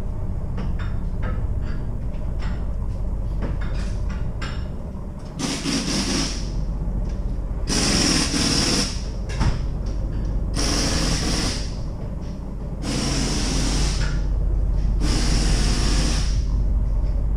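Repeated bursts of hissing compressed air in a tire shop, each about a second long and coming every two seconds or so, over a steady low hum.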